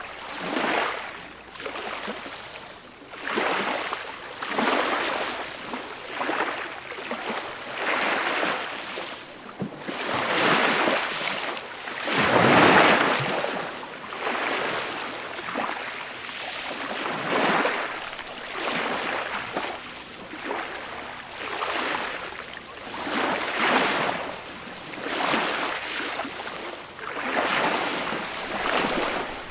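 Small, gentle sea waves washing onto a beach shore, a hissing wash that swells and falls every second or two, with one larger wave breaking about twelve seconds in.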